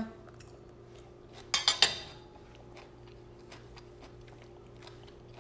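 Metal fork clinking against a plate in three or four quick knocks about a second and a half in, as it is set down. Faint chewing ticks follow.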